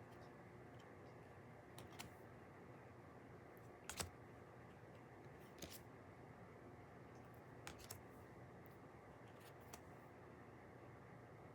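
Near-silent room with a handful of light, sharp clicks and taps, the loudest about four seconds in: tarot cards being handled and laid down one at a time.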